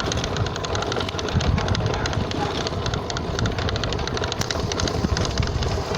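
Rapid, continuous clicking and rattling over a low rumble from the front end of a Honda CB650F motorcycle with its engine off. This is the small noise near the instrument panel that the owner cannot yet identify.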